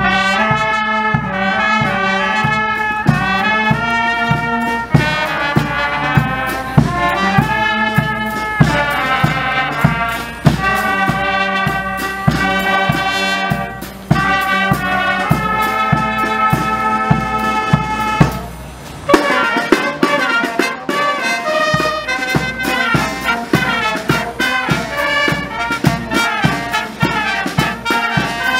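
Military brass band playing a march: trumpets and other brass in full chords over a steady bass-drum beat. The bass drum drops out for a few seconds about two-thirds of the way through, then the beat returns.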